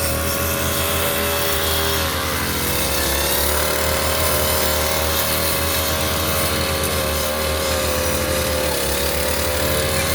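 Brush cutter engine running steadily at high speed. Its pitch sags briefly twice, about three seconds in and again near the end.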